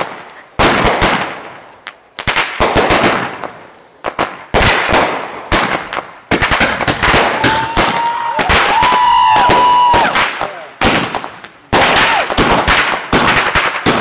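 Dragon egg crackling fireworks going off in repeated bursts of rapid sharp crackling pops, each burst fading out. There are about six bursts, and a steady whistle sounds for two or three seconds about halfway through.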